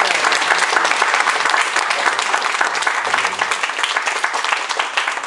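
Audience applauding: dense, steady clapping after a poem has been read aloud.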